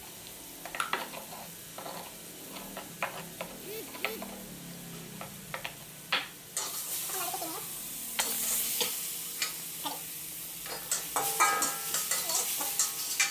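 Scraping and tapping of a plastic cup against a stone mortar. About six and a half seconds in, a steady sizzle starts as sliced shallots, garlic and chili fry in oil in a wok, with a metal spatula scraping and stirring near the end.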